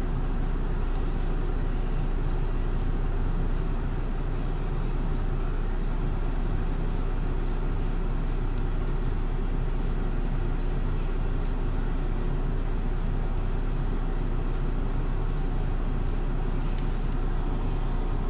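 MAN Lion's City LE Ü bus's D0836 EEV inline six-cylinder diesel running steadily, heard from inside the passenger cabin ahead of the rear axle.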